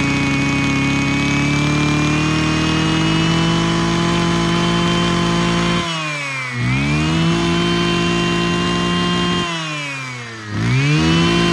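Mitsubishi TL33 two-stroke brush cutter engine running at high throttle while its carburettor mixture screw is adjusted, the revs creeping up at first. Twice the throttle drops off and the engine sags before revving straight back up. The carburettor had been set too rich.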